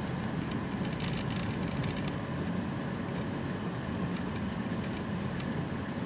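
Steady low drone of a car's engine and tyres heard from inside the cabin while driving on a snow-covered road.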